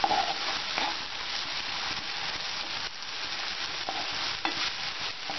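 Raw minced chicken (keema) sizzling in hot oil with onion and tomato in a frying pan while a spoon stirs it through, with a few scrapes of the spoon against the pan.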